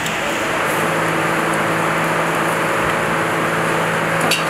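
A steady machine hum under a loud, even hiss, with one short sharp click near the end.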